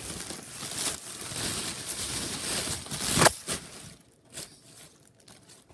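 Packaging crinkling and rustling as it is handled and unwrapped, with one sharp, loud crackle about three seconds in, then only a few soft rustles.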